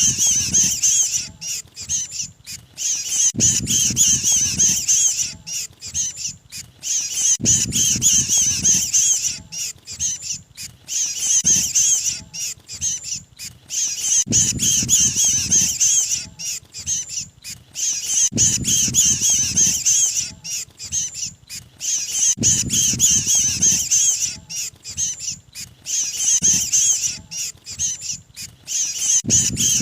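Bird-lure recording of mantenan birds' distress chatter, the 'kejepit' call of a trapped bird, looped so that the burst of high, rapid, harsh notes repeats about every four seconds, with a low rumble at the start of each repeat.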